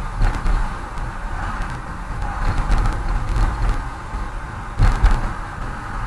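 Car cabin interior at a steady cruise around 47 km/h: low engine and road rumble with tyre noise, and a brief knock or two just before five seconds in.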